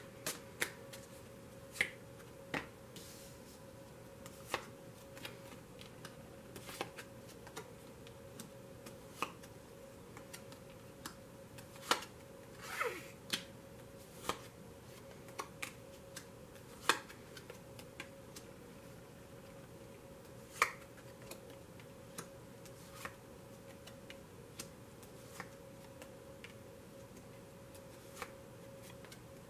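Tarot cards being dealt one at a time onto a cloth-covered table: scattered soft snaps and taps as each card is flipped and set down, irregular and a second or two apart, over a faint steady hum.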